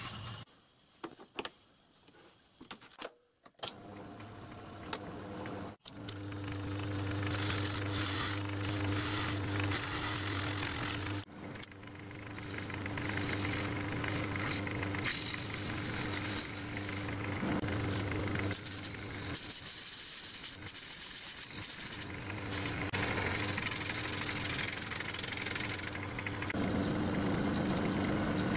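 Metal lathe running with a steady motor hum while its tool cuts a bronze cylinder end cover, the hiss of the cut coming and going. The first few seconds are quieter, with a few knocks, before the lathe is heard.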